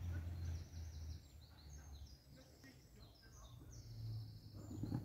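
High, thin bird chirps, a run of short notes at shifting pitches, over a low steady rumble.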